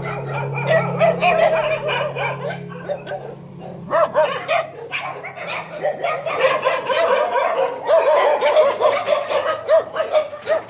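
Many dogs barking and yipping over one another in short, overlapping yaps, growing busier and louder about a third of the way in. A steady low hum sits underneath for the first few seconds.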